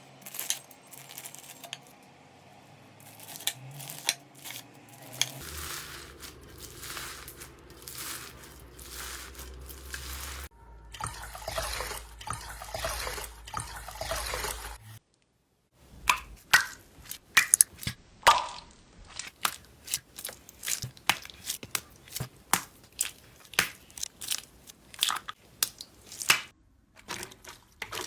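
Slime being handled: squeezed and stretched with soft crackling and squishing, then, after a short break, poked and pressed in a run of sharp pops, about two a second.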